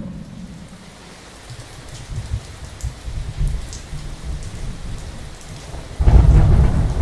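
Rain falling steadily with low rumbles of thunder; a loud thunderclap breaks in about six seconds in.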